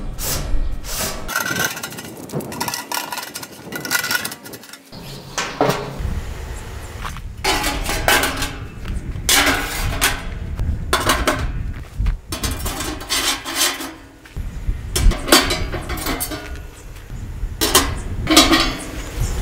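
Metal parts of a portable smokeless fire-pit stove clinking and knocking as they are handled and fitted together: a series of separate, irregular clanks.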